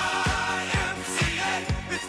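Upbeat disco-style dance music with a steady kick drum, about two beats a second, under a melodic line.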